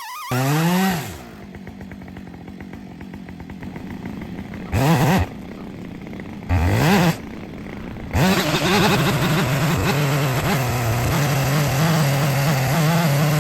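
Husqvarna 562 two-stroke chainsaw idling and blipped to high revs three times, then held at high revs, its pitch wavering, from about two-thirds of the way in.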